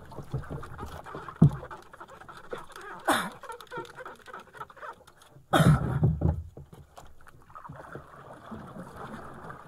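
Sea water lapping and splashing against the hull of a small outrigger fishing boat, with scattered knocks and one louder rush of noise about five and a half seconds in.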